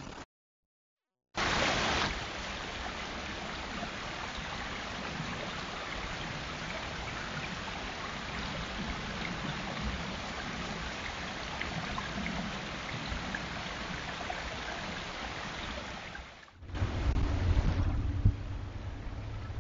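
Steady, even rushing of running water, cut in abruptly after a second of silence. Near the end it cuts to a louder low rumble.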